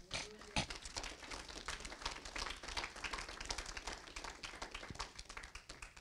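Small audience applauding: many overlapping hand claps, starting together and going on steadily.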